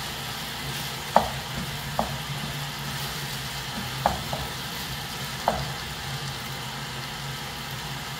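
Chicken stew of onions and tomatoes sizzling in a pot while a wooden spoon stirs it, knocking sharply against the pot four times. The tomatoes have cooked down and the stew is frying in the oil before the stock goes in.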